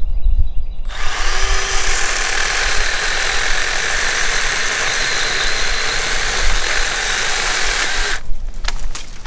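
Milwaukee M12 Fuel Hatchet, a 6-inch battery-powered mini chainsaw, starting up about a second in and cutting straight through a dead cedar trunk about 3 inches thick. It runs steadily through the cut and stops abruptly about a second before the end.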